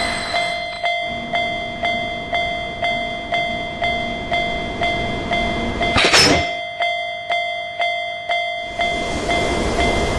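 Railroad crossing alarm bell ringing steadily, about two strikes a second, over the steady noise of a passing train, with a short loud burst about six seconds in.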